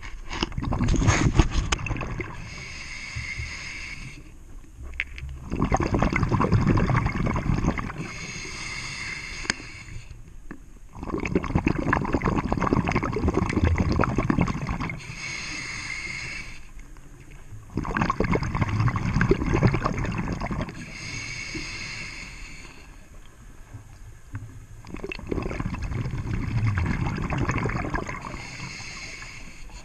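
Scuba diver breathing through a regulator underwater: a short hiss of inhaled air, then a longer rumbling gurgle of exhaled bubbles, repeating about every six seconds for some five breaths.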